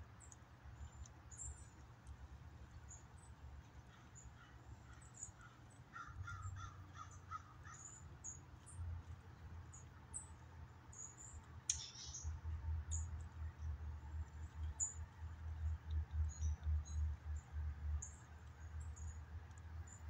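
Wild birds calling outdoors: many short, high chirps, a quick run of about six harsher, lower calls about six seconds in, and one loud falling note near the middle. A low rumble of wind on the microphone grows heavier and more gusty in the second half.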